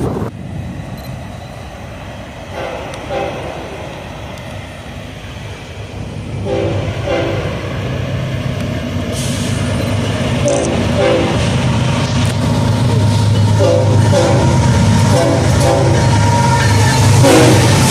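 BNSF diesel freight locomotive approaching and sounding its air horn in a series of short and long blasts, one long blast a few seconds from the end, while its engine grows louder as it nears. The opening few seconds are a quieter, more distant train with two short horn toots.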